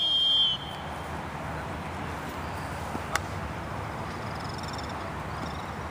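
A short, high whistle blast, a referee's whistle signalling play, followed by steady open-air field noise with a faint click about three seconds in.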